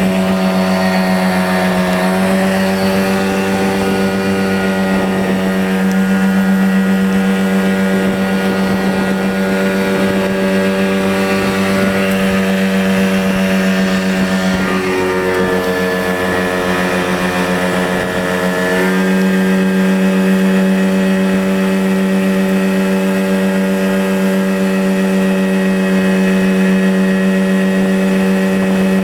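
Outboard motor driving a MacGregor 19 powersailer under power: a steady engine drone over the rush of the wake. A little past halfway the engine note wavers for a few seconds, then settles back to steady.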